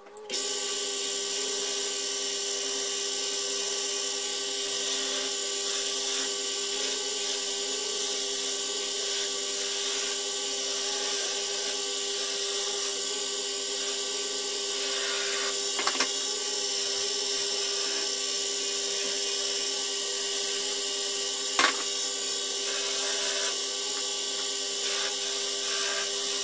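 Wood lathe running while a hand-held turning tool cuts the spinning wooden spindle: a steady hiss of cutting over the motor's even hum, starting abruptly. Two sharp clicks sound in the second half.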